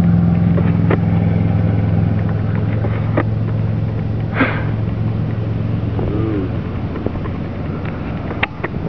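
Steady low engine hum of an idling motor, easing off about six and a half seconds in, with a few faint clicks and a brief noisy burst near the middle.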